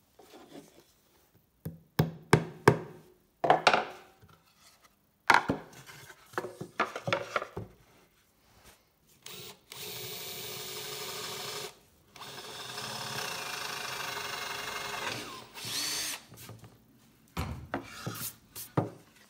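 Wood knocking and clattering on a workbench as a slab and template are handled. Then a small power tool motor runs steadily twice, the second run longer, and it dips in pitch as it stops. A few more knocks follow near the end.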